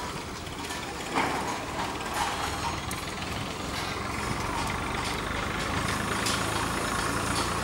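Construction-site machinery: an engine running steadily with a low hum, and a few short sharp clanks over it.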